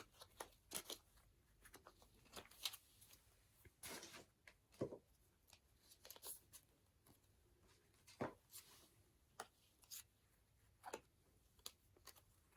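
Faint, scattered rustles and light taps of photocards and their plastic packaging being handled and set aside.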